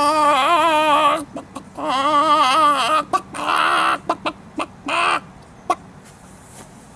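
Hen-like clucking and squawking: a long wavering call that breaks off about a second in, a second drawn-out call, then a run of short clucks that die away about five seconds in.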